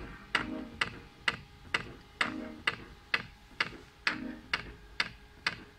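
Electronic music played through a small speaker driven by a TPA3118 mono amplifier board. This is a sparse passage: sharp clicks about twice a second over a soft low beat about once a second.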